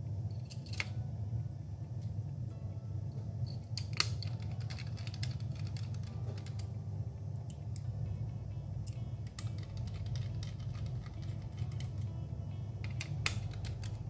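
Small screwdriver clicking and tapping on the laptop's CPU heatsink screws as they are driven back in, with a few sharp clicks, one about a second in, one about four seconds in and one near the end, over a steady low hum.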